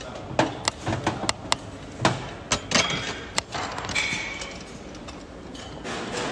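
A run of sharp, irregular knocks and clicks, about a dozen over the first three and a half seconds, then quieter background noise.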